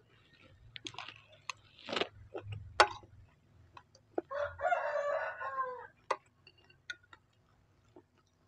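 A rooster crows once, a single call about a second and a half long, midway through. Before it come sharp clicks and scrapes of a metal spoon on a plate, the loudest a single sharp click.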